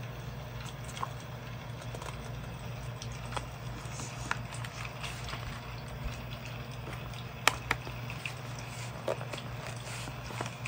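Hands closing a travel notebook with a suede-like cover, giving soft handling noises and light taps. About two-thirds of the way through come two sharp clicks, close together, as the notebook's elastic band is hooked around the button on the cover. A steady low hum runs underneath.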